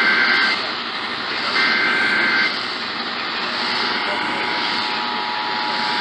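Emergency Alert System broadcast heard from an FM radio's speaker: the last two bursts of the SAME digital header, a harsh two-tone data screech about a second long each, then, about 4 s in, the steady two-tone EAS attention signal starts. It all sits over a loud hiss. It is the opening of a Severe Thunderstorm Warning.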